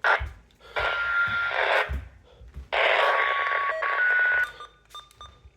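Weather radio receiver sending the buzzy digital EAS/SAME header bursts that open a new alert: two long harsh data bursts about a second apart, then fading out.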